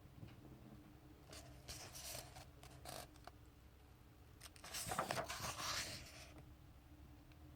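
Pages of a paperback comic book being turned: a few short paper rustles a little over a second in, then a louder, longer rustle about five seconds in, over a faint steady hum.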